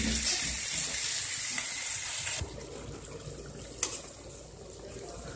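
Stuffed ridge gourds sizzling steadily in a lightly oiled pan. About two and a half seconds in the sizzle drops abruptly to a quieter bubbling of the gourds cooking in the water they have released, with a single clink of the slotted spatula against the pan a little later.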